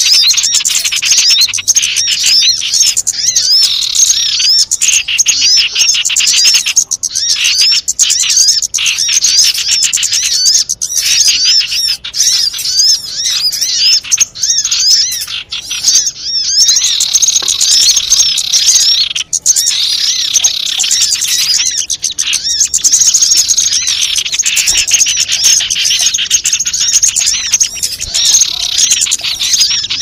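Bird-lure recording of many small wild birds calling at once: a dense, loud chorus of rapid high chirps and twitters that runs on without a break.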